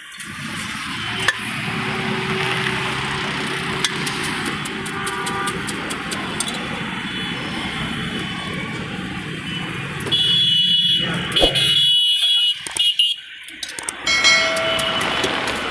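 Street traffic noise: vehicle engines running steadily, then horns honking several times in the last few seconds.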